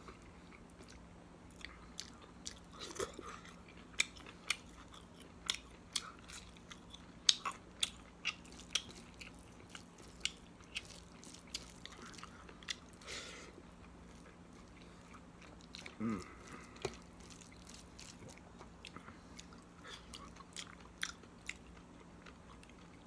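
Close-up eating sounds of a person eating rice by hand: chewing, with irregular wet mouth clicks and smacks, several a second at times. A faint steady hum sits underneath.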